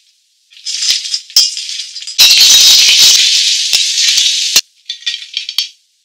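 Crab pieces coated in starch sizzling and crackling as they deep-fry in hot oil in a wok. The sound comes in bursts, with one long, loud stretch starting about two seconds in.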